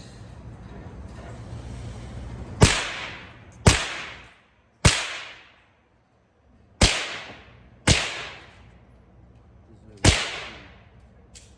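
Six single pistol shots from a Glock 23, fired one at a time about one to two seconds apart, each followed by a short fading echo.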